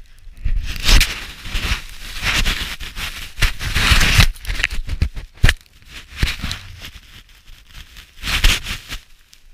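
Irregular rustling and crackling close against the camera's microphone, as fur or snow rubs over the camera housing, with a few sharp knocks; the loudest stretch is about three and a half to four seconds in, with a sharp knock about five and a half seconds in.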